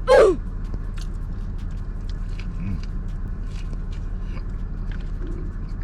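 A person chewing a mouthful of sandwich, with small soft clicking mouth sounds, over a steady low hum. A short voiced exclamation comes right at the start and is the loudest sound.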